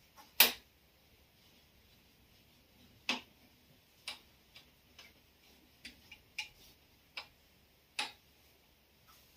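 Scattered sharp taps and knocks of a whiteboard duster against a whiteboard as the board is wiped clean, about ten at uneven spacing, the loudest about half a second in.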